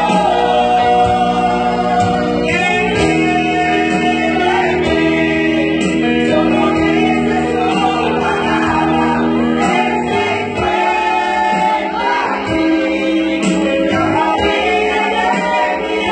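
Small women's choir singing a church worship song into microphones, with long held notes.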